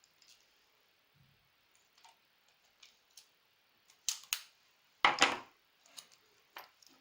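Scissors cutting a piece of heat-resistant tape: a few faint clicks, then two sharp snips about four seconds in and a louder, noisier cut about a second later.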